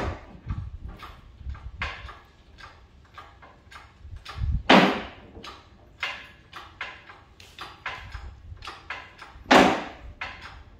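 Irregular metal clicks and knocks from hands-on work at a two-post car lift's post and its engine-hoist chain, with three louder clanks about five seconds apart.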